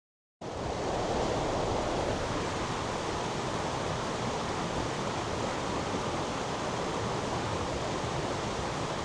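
Steady rushing water of a mountain stream, an even roar without rhythm, cutting in suddenly about half a second in.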